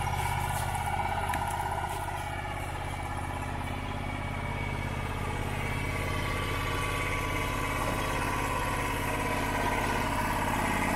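Wood-Mizer LT35HD portable sawmill's engine idling steadily.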